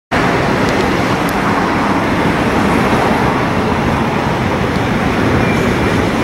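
Gyeongui–Jungang line commuter electric train running along the track with a steady, loud rumble of wheels on rail.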